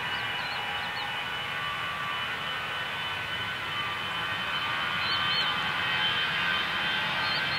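Airbus A321 jet engines whining steadily at low thrust as the airliner taxis on the runway, growing slightly louder toward the end.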